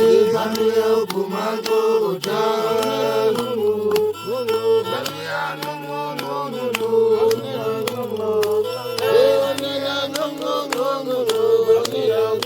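Music: a chanted, sung melody over a steady held drone, with a regular clicking beat.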